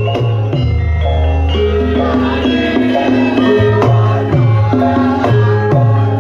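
Javanese gamelan music accompanying a lengger dance. Kendang hand-drum strokes slide down in pitch again and again, over a steady run of struck keyed-instrument notes.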